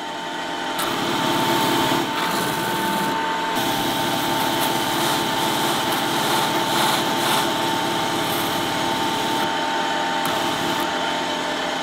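A steel bar pressed hard against a spinning felt polishing wheel coated with dried abrasive glue and polishing paste: a steady rasping rub with a constant high whine. It grows louder about a second in as the bar bears down. The sound comes from charging and softening the felt's abrasive coating during its break-in for emery polishing.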